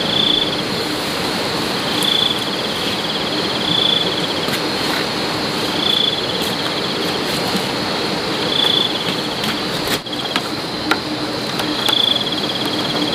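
Insects singing: a steady high-pitched drone with short trills repeating about every two seconds, over a steady background hiss.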